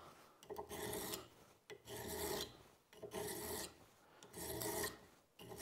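Hand file pushed across the edge of a steel card scraper blank clamped in a vise, filing the bevel that will form its cutting edge: about five even strokes, roughly one a second, with short gaps between them.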